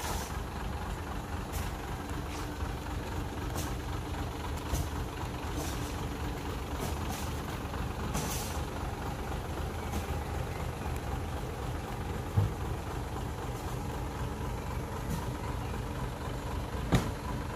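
Hyundai dump truck's diesel engine running steadily, with its bed raised, while it tips soil. A few short hisses come through, the clearest about eight seconds in; there is a low thump about twelve seconds in and a sharp knock near the end.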